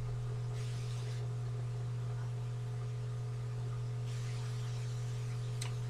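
Steady low electrical hum with light hiss from the recording setup, with no speech; a faint click near the end.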